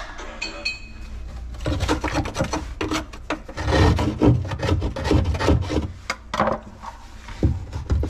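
Hand drywall jab saw rasping through sheetrock in quick, irregular back-and-forth strokes, widening a hole to fit an electrical box. A single knock near the end.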